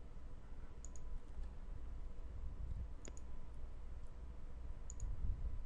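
Computer mouse button clicking, three faint clicks about two seconds apart, some heard as a quick double tick of press and release, over a low steady hum.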